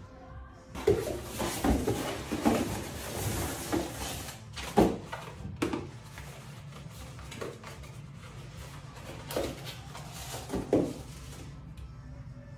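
Cardboard box and packing material being handled and unpacked: rustling and crinkling with sharp handling knocks, busiest in the first half, then a few separate light knocks.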